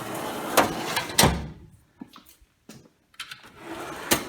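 Steel Snap-on toolbox drawers rolling on their slides. A drawer slides and meets its stop with two loud knocks in the first second and a half, a few light clicks follow, then another drawer slides and ends in a sharp knock near the end.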